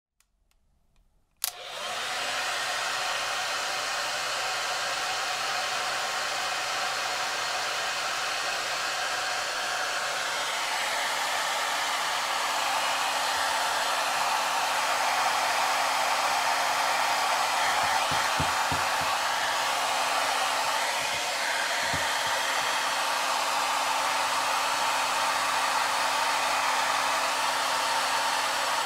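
Hair dryer switched on with a click about a second and a half in, its fan quickly spinning up to a steady rushing blow that holds. A faint hum joins partway through, and a few soft knocks come later on.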